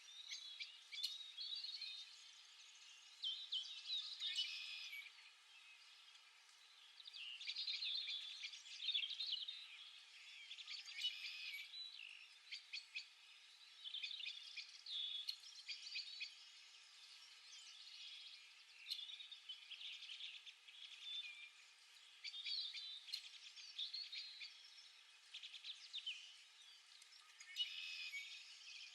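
Small birds chirping and twittering, with many short, high, overlapping calls coming in clusters every second or two.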